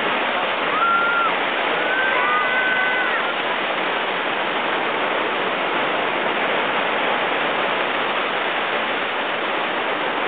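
Water pouring down the concrete wall of a rapids ride's artificial waterfall and churning in the white-water channel below: a steady rush of falling water.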